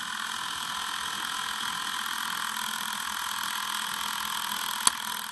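Film projector running: a steady, thin mechanical whirr with one sharp click near the end.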